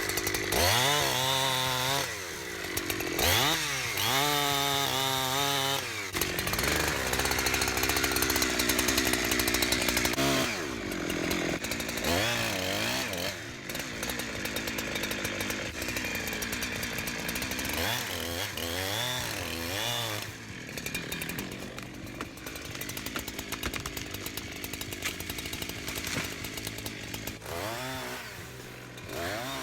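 Holzfforma G372XP two-stroke chainsaw cutting wood: the engine revs up and drops back again and again, with longer stretches of steady running under load between the revs.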